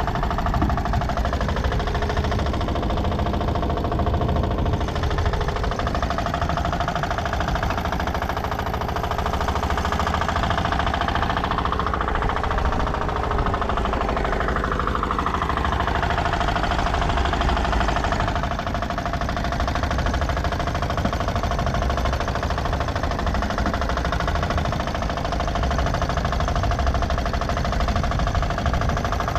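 Small rabetão long-tail motor running steadily as the boat goes under way, with a rush of wind and water.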